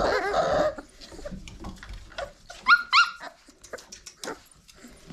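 Five-week-old red nose pit bull puppies vocalising: a noisy tangle of puppy sounds at the start, then two short, high yips a little past halfway, with scattered small clicks in between.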